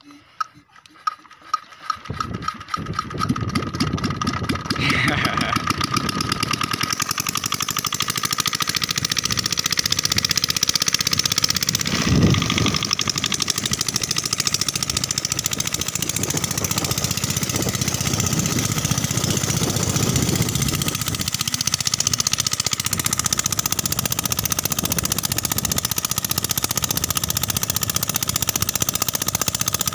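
Single-cylinder 7 hp diesel engine starting: a few separate knocks in the first two seconds, then it catches and runs steadily with a loud rhythmic chug while driving a water pump.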